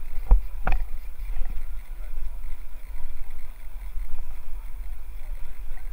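Wind buffeting the microphone of a camera on a moving bicycle, a steady low rumble, with two sharp knocks close together near the start.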